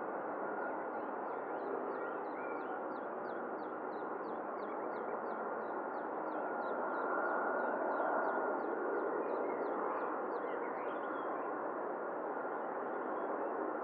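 Steady jet engine noise, with a rapid run of short high chirps, about two or three a second, that stops near the end.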